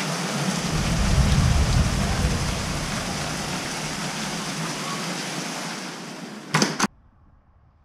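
Heavy rain pouring down in a thunderstorm, with a low rumble of thunder that swells about a second in and fades over the next couple of seconds. Near the end, two loud knocks as a door is shut, and the rain sound cuts off.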